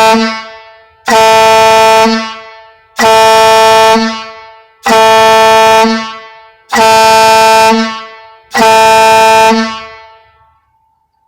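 Grover air-powered boat horn, run on 95 psi from an air compressor, sounding six blasts about two seconds apart to mark six o'clock. Each blast is a steady pitched note about a second long that fades away with a ringing tail.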